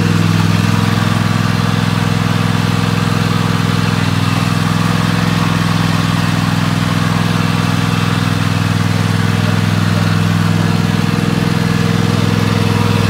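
Riding lawn mower's engine running steadily, with an even, unchanging pitch as the mower is driven.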